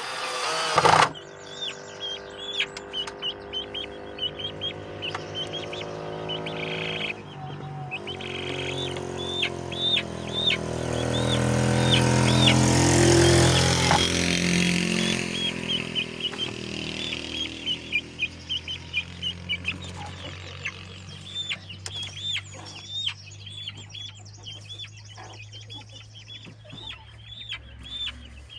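Chickens calling, with many short high peeps repeated throughout. Under them a motor hums steadily, growing louder to a peak about halfway through, then fading.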